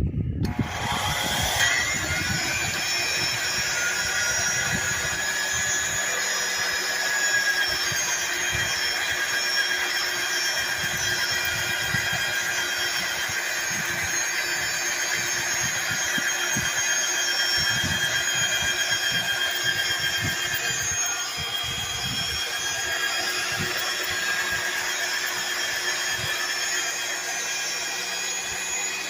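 Milwaukee magnetic drill spinning up to speed and running steadily as it drills out a broken exhaust manifold bolt hole, oversizing it to take studs. The motor whine rises over the first couple of seconds and then holds, with irregular low knocks from the cut.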